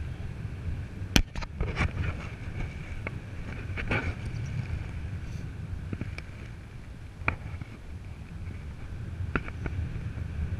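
Wind buffeting the microphone in flight under a paraglider: a steady low rush, with scattered sharp snaps and clicks, the loudest a little over a second in.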